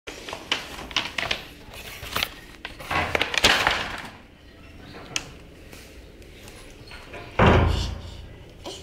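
Scattered knocks and clicks with camera-handling noise, then a loud dull thump and rumble about seven and a half seconds in.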